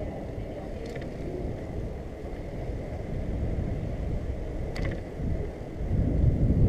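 Wind rushing over the microphone and tyre rumble from a bicycle rolling along an asphalt street. Two short clicks come about a second in and near five seconds, and the rumble grows louder near the end.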